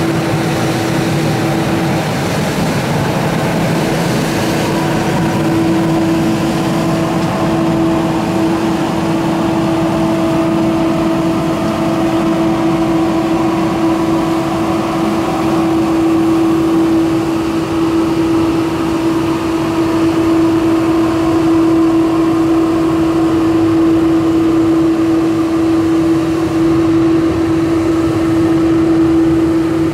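Scania P270 street sweeper truck at work: its engine and sweeping machinery run steadily with a constant pitched whine, while the rotating gutter brushes scrub gravel off the road.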